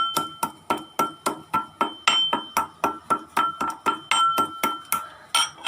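Cardamom pods being crushed with a pestle in a mortar: rapid, even pounding at about four strikes a second. Each strike leaves a ringing tone.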